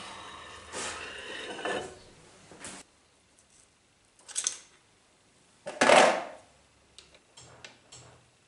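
Steel lathe carriage parts being handled during disassembly: a steel slide plate scraping along steel for about two seconds, a short clink in the middle, a heavier metal clunk about six seconds in, then a few light clicks.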